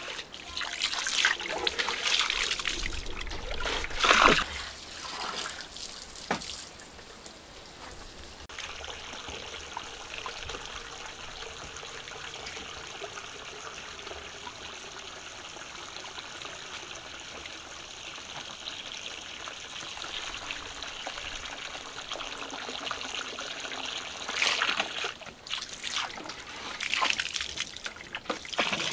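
Water trickling steadily, with louder, uneven bursts of water sound in the first few seconds and again near the end.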